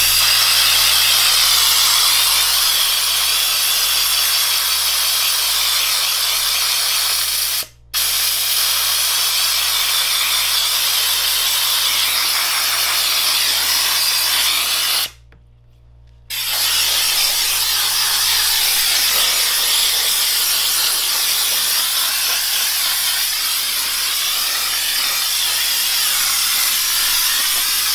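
Air-powered bucket washer's hand spray wand, driven by shop compressed air, blasting soapy water onto a mini bike's wheel and engine: a loud, steady hiss that cuts out for a moment about 8 s in and for a little over a second around 15 s in, then carries on.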